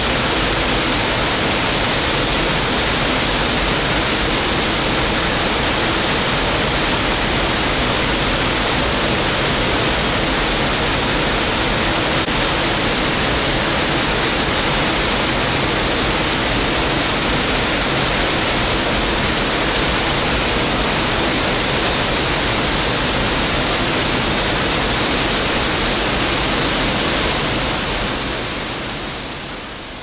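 Waterfall pouring, a steady rush of falling water that fades down near the end.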